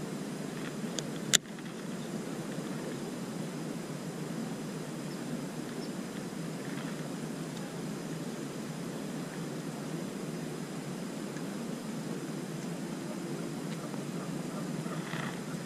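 Steady low outdoor background rumble, with one sharp click about a second in.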